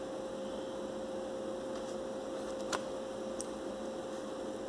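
Steady electrical hum, with a single sharp click about two-thirds of the way through as a tarot card is handled, and a fainter tick just after.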